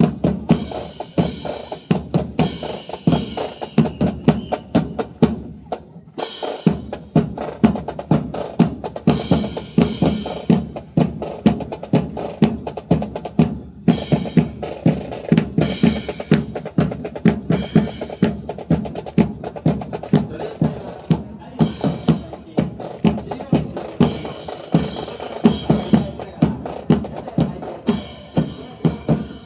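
Drum cadence of snare and bass drums beating a steady rhythm, several strokes a second, with occasional brighter crashes mixed in.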